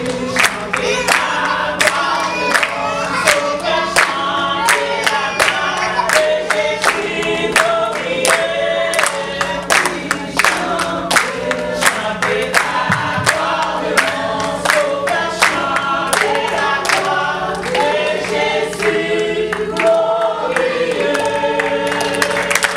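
A women's group singing a church song together, with steady hand claps keeping the beat.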